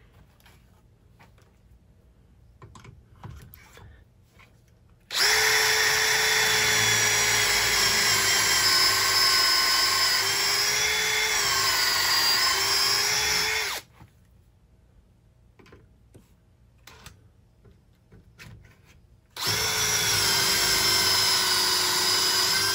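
DeWalt cordless drill boring dowel holes into a wooden board through a metal drill-guide jig. The motor runs at a steady whine for about nine seconds, dipping slightly in pitch under load, then stops. After a quiet pause with a few small clicks, it starts again for the second, opposite-angled hole near the end.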